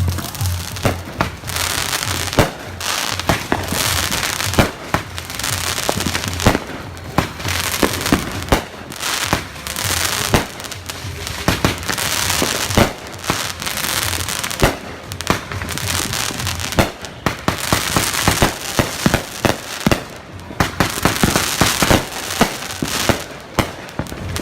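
Neighbourhood fireworks going off in a dense barrage: firecrackers crackling and sharp bangs following one another several times a second, with no let-up.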